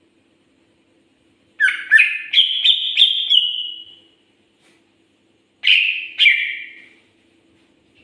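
Greater green leafbird (cucak ijo) singing: a loud run of about seven quick notes that step up in pitch and trail off, then a shorter two-note phrase a couple of seconds later.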